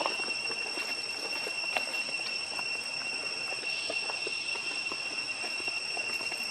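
Steady high-pitched insect drone, a tropical forest chorus of cicadas or crickets, with faint scattered rustles and ticks of dry grass and leaves as baby macaques move and handle stems.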